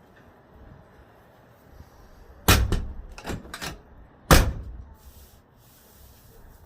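Ford F-150 pickup door, hung on new hinges, slammed shut twice about two seconds apart, with a few lighter knocks in between.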